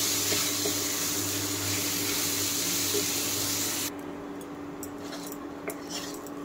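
Gobindobhog rice frying in ghee in a pan, sizzling steadily while a wooden spatula stirs it as the grains are toasted. The sizzle cuts off suddenly about four seconds in, leaving faint scrapes and clicks of the spatula.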